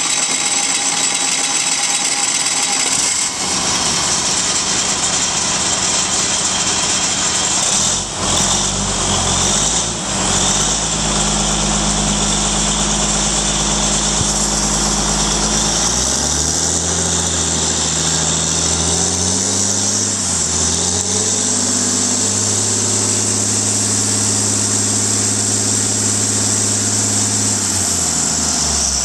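Caterpillar 3406B inline-six diesel power unit running just after start-up, its engine note shifting in pitch several times as the engine speed changes, about 8, 11, 16 and 20 seconds in, with a steady high hiss above the engine note.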